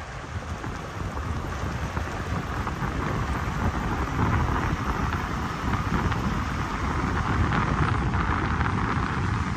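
Wind buffeting the microphone outdoors: an irregular low rumble under a steady hiss, growing a little louder over the first few seconds.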